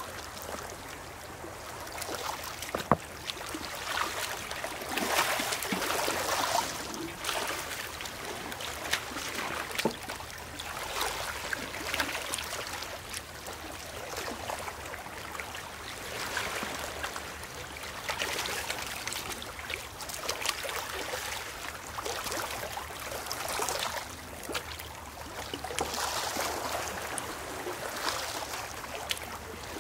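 Shallow seawater washing in and out among rounded beach stones, swelling and fading every few seconds, with a few sharp knocks.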